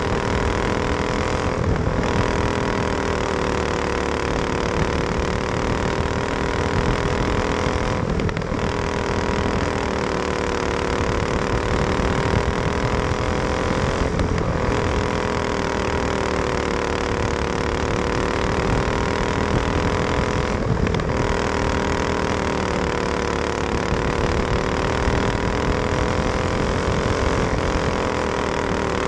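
Racing kart engine at race pace, heard close up from onboard. Its pitch sags and climbs back about every six seconds, with a brief drop in sound each time, as the driver lifts for each turn of the dirt oval.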